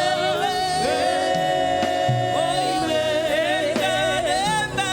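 Gospel worship song with live band accompaniment: singers hold a long note on the end of the phrase "forever and ever," then sing "Amen" near the end.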